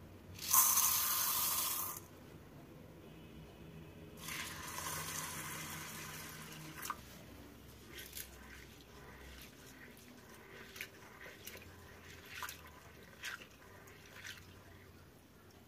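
Dry sago pearls poured from a measuring cup into a terracotta bowl with a short rattling hiss, then water running into the bowl for about three seconds. After that, a hand swishes and rubs the sago pearls in the water, giving scattered small splashes as the pearls are washed.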